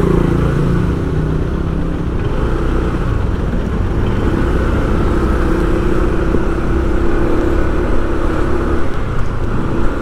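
Motor vehicle engine running steadily, with road noise.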